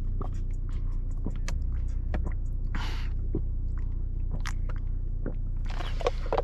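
A person chewing and biting food close to the microphone: irregular small clicks and crunches over a steady low hum.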